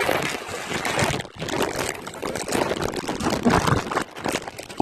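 River rapids rushing and splashing, an uneven churning of water that swells and dips in level.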